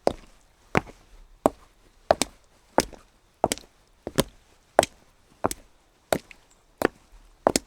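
Footsteps walking at an even pace on wet cobblestones, about three sharp steps every two seconds. Some steps land as a quick double click.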